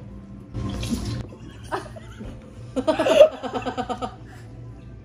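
Ranch dressing squirting from a squeeze bottle into a plastic bowl about a second in, then several people break into loud laughter.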